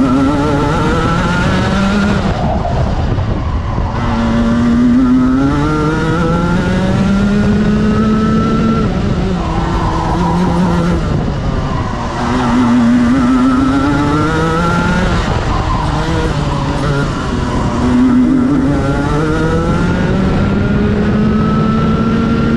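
Racing kart's engine heard from onboard the kart, its pitch climbing as it accelerates and dropping away when it backs off, several times over.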